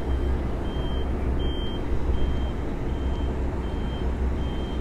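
Diesel engines of concrete mixer trucks running with a steady low rumble, while a reversing alarm sounds short high beeps a little faster than once a second.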